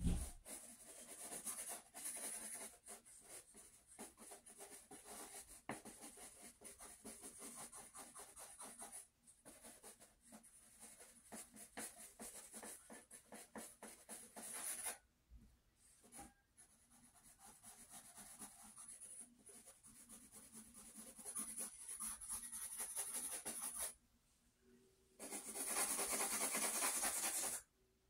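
Quick scratchy strokes of a drawing tool shading on sketchbook paper, in runs broken by two short pauses, with a louder, continuous stretch of scratching near the end that stops abruptly.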